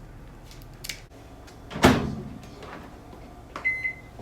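A microwave oven door shut with a single loud thump, then two short electronic keypad beeps near the end.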